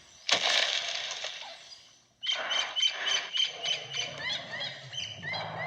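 A mock T-Rex sound effect played back from a video: a short harsh blast that dies away, then a run of high, evenly spaced squeaky chirps, about three a second.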